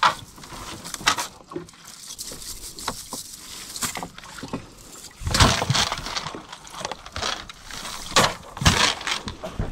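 Handling of a cast net in a small boat: irregular rustling and clicking of the net mesh and its weights, with knocks against the hull. Louder clattering bursts come about five seconds in and again near the end.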